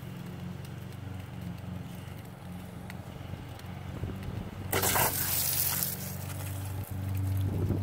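A garden hose being unscrewed from an outdoor spigot: about five seconds in, water sprays out with a loud hiss for about a second as the coupling comes free. A steady low hum runs underneath.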